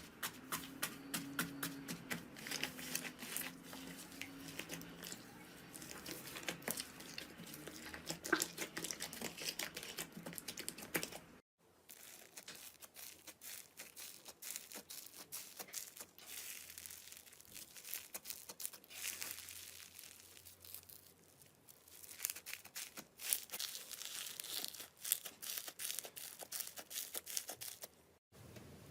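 Slime being squeezed and poked by hand: a dense run of small crackling, popping clicks. The sound drops out briefly about eleven seconds in and again just before the end.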